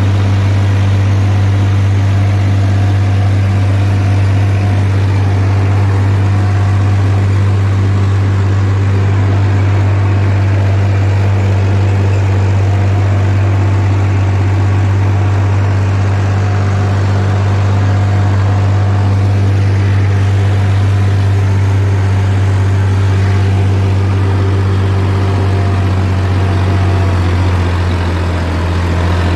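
Massey Ferguson 7250's 50 hp diesel tractor engine running steadily at a constant note while the tractor works a field with a 14-disc harrow, heard from the driver's seat.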